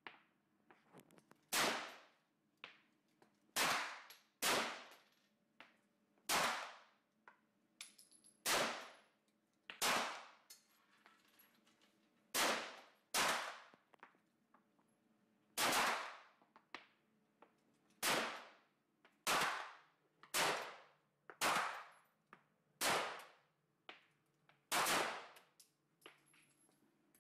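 Gunshots on a shooting range: about sixteen single shots fired one at a time, irregularly spaced about one to two seconds apart, each a sharp crack with a short ringing tail.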